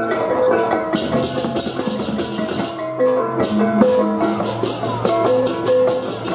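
Balinese baleganjur gamelan playing: bronze gongs sounding an interlocking pitched pattern, joined about a second in by cengceng kopyak hand cymbals clashing in a fast, driving rhythm. The cymbals stop briefly around three seconds and then come back in.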